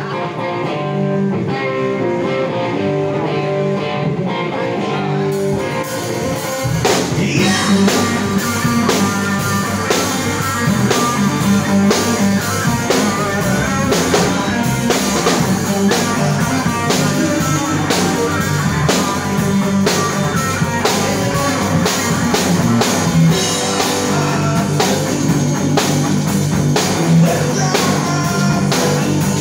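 A live rock band playing on stage: electric guitar alone with held notes for about the first five seconds, then the drum kit and cymbals come in on a steady beat and the full band plays on.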